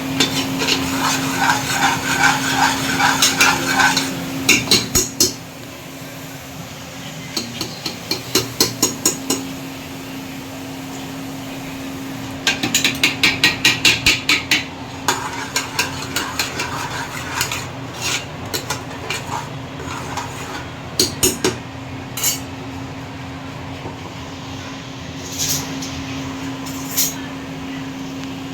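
Kitchen knife chopping on a cutting board in quick bursts of about five strokes a second, with single knocks between bursts, over a steady low hum.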